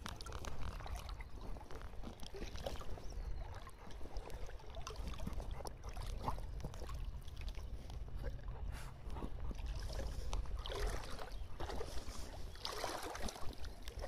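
Water sloshing and splashing as golden retrievers wade through a shallow river, with two heavier splashes about 11 and 13 seconds in. A steady low rumble runs underneath.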